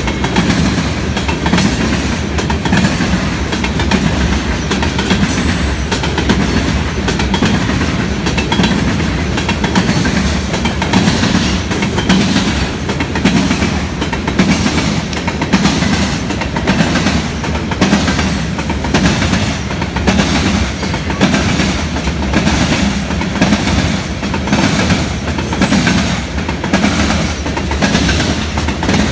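Loaded freight train of covered hopper cars rolling past close by: a steady rumble of steel wheels on rail, with a regular clickety-clack as the wheels cross the rail joints.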